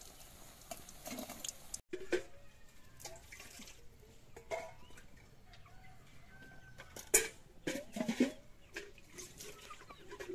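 Pakoras sizzling in hot oil in an iron kadai for about two seconds, cut off abruptly. Then quieter outdoor sound: scattered knocks and clatters, a few short bird chirps, and two louder sharp sounds about seven and eight seconds in.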